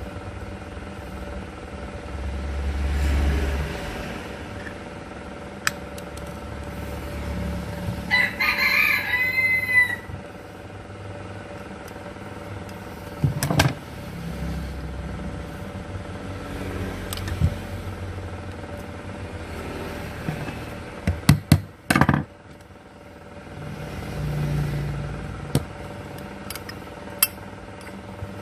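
A rooster crows once, about eight seconds in, over a low steady hum. Sharp clicks or taps come at about thirteen seconds, and again, louder, in a quick cluster a little after twenty seconds.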